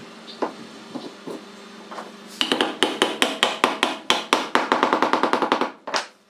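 A few separate knocks, then a fast run of sharp hammer taps on wood, about nine a second for some three seconds, ending with one last tap.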